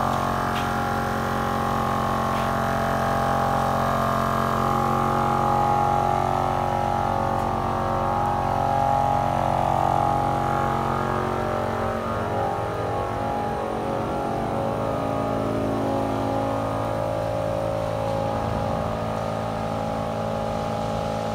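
A motor running steadily with a constant mechanical drone that eases slightly about twelve seconds in.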